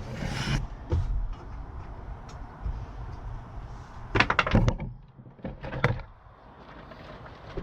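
A series of knocks and clanks inside a van: a short scrape at the start, a knock about a second in, a quick cluster of sharp clanks about four seconds in and one more just before six seconds.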